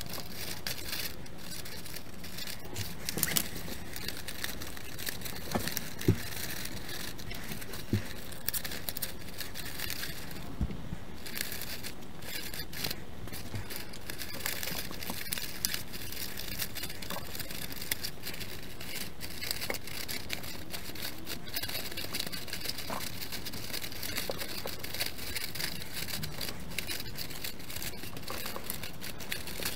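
Construction paper crinkling and rustling in short, irregular crackles as strips are threaded through a woven paper basket, with a few louder taps.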